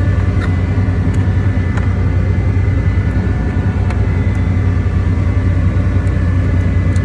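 Steady low drone of a fishing trawler's running machinery, with a faint steady high whine above it.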